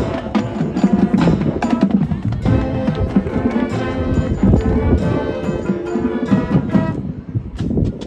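High school marching band playing its field show: sharp percussion hits throughout, with the horns holding sustained chords from a couple of seconds in. Near the end the horns drop out and lighter clicking percussion carries on.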